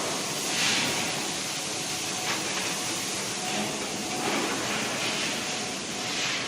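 Steady din of milling-plant machinery running, a continuous noisy hiss with a few short swells that come and go.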